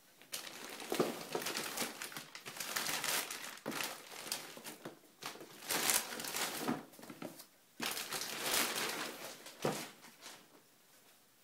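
Crinkly packaging rustling and crinkling in irregular bursts as it is handled and unwrapped, stopping about ten and a half seconds in.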